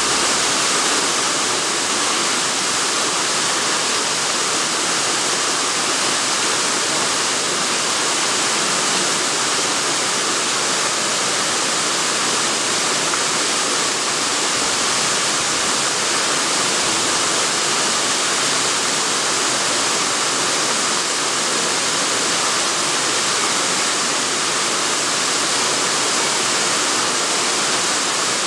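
Steady, even rushing hiss, like running water, unchanging throughout.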